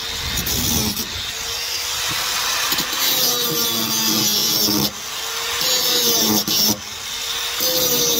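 Handheld electric angle grinder grinding down weld seams on a car's steel floor tunnel, disc on metal throughout. The motor's tone wavers up and down as the disc is worked, with a couple of brief dips in level.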